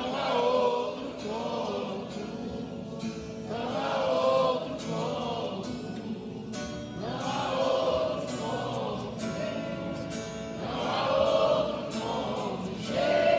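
A congregation singing a worship song in Portuguese over instrumental accompaniment, the voices swelling in a new phrase every few seconds.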